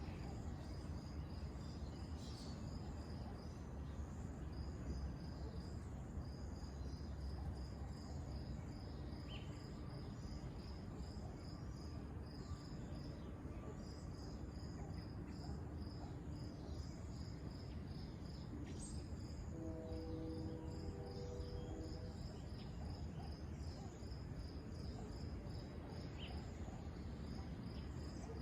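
Chirping insects: a steady run of short, high, evenly spaced chirps with brief pauses, over a low steady rumble. A few short low notes sound about two-thirds of the way through.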